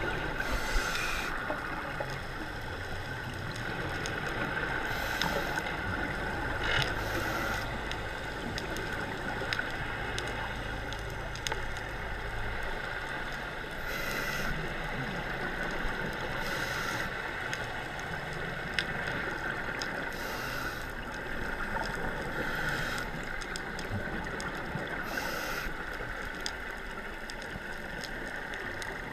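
Scuba divers breathing through their regulators underwater, with short hissing bursts of exhaled bubbles every few seconds over a steady drone. A low rumble fades out about halfway through.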